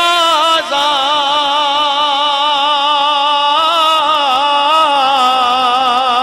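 A man singing one long held note of a Punjabi Sufi kalam, with a wide wavering vibrato; the pitch steps up a little about halfway through.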